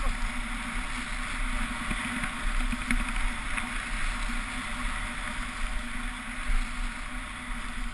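Steady wind rushing over an action camera's microphone during a fast ski descent, with a low rumble and the continuous hiss of skis sliding on groomed snow.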